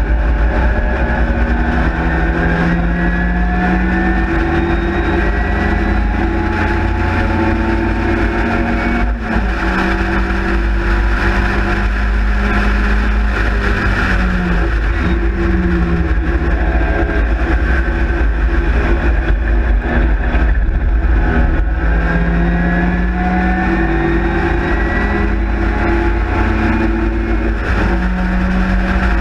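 A Sprite/Midget race car's four-cylinder engine running hard on track. The revs climb steadily and drop back in steps, with brief dips about nine and fifteen seconds in. A heavy low wind rumble sits under it in the open cockpit.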